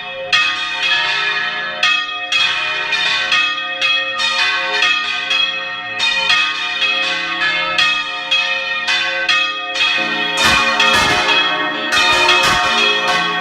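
Several church bells swung full-circle (volteo) and ringing from inside the bell tower: quick overlapping clangs with long ringing tones. Louder, deeper strokes join about ten seconds in.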